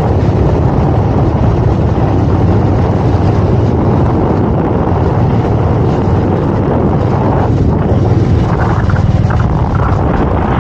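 Steady wind rush on the microphone of a moving motorbike, mixed with engine and tyre noise at road speed.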